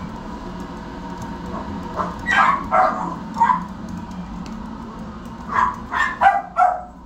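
Small dogs barking in two short bursts of sharp barks, about four barks around two seconds in and about five more around five and a half seconds in.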